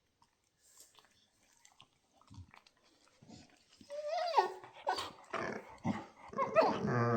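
Labrador retrievers play-fighting: a few quiet seconds of small grunts and clicks, then from about four seconds in loud, wavering whines and growling vocal noises from a dog at play.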